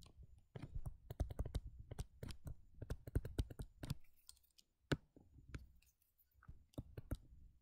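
Stylus tip tapping and clicking on a tablet screen during handwriting: an irregular run of small, quick clicks with short pauses.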